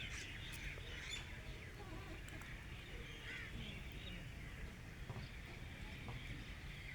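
Wild birds chirping and calling over a steady low rumble, with one call standing out about three seconds in.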